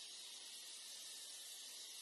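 Faint, steady high-pitched hiss with no bird call heard.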